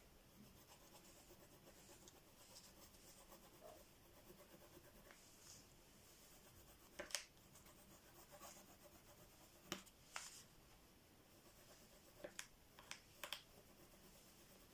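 Faint scratching of a pencil drawing on paper, with a few sharp clicks or taps about halfway through and a small cluster of them near the end.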